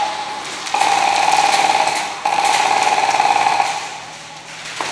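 Airsoft electric gun firing on full auto: two long bursts of rapid, even buzzing fire, about a second and a half each, almost back to back, starting about a second in.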